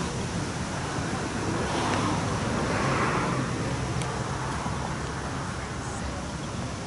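Steady outdoor background noise: a low rumble with a hiss above it, swelling slightly about two to three seconds in.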